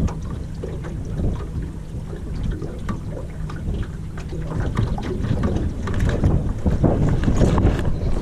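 Gusty wind rumbling on the microphone aboard a small boat on the water, with scattered light knocks and ticks; the wind gets stronger after about five seconds.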